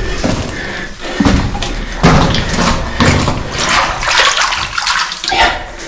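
Water splashing and sloshing irregularly as a person moves through shallow water in a low, flooded mine tunnel, with a few dull knocks in the first two seconds.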